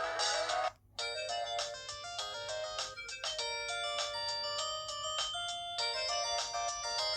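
Ringtone melodies of a Curitel PH-L4000V mobile phone playing from its speaker: one synthesized tune cuts off a little under a second in, and after a short gap another bright, note-by-note melody starts.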